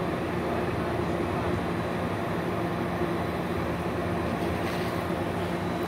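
CAF light rail train cars rolling slowly past through a level crossing: a steady hum of the train with a few low tones under the noise of the wheels on the rails.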